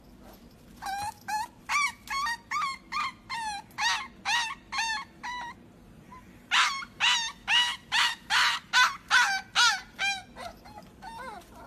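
A puppy yipping: two runs of short, high yips, about two or three a second, with a pause of about a second between the runs.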